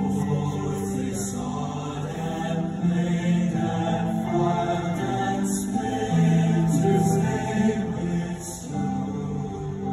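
Male choir singing a slow choral piece with piano accompaniment, heard live from the audience in a large hall.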